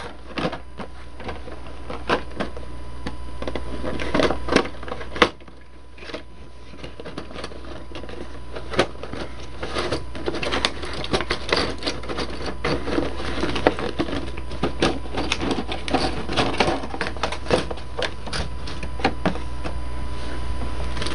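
Plastic wrapping and a cardboard miniatures box being torn open and handled: dense crackling and rustling with many scattered clicks, building slowly in loudness, with a sudden drop about five seconds in.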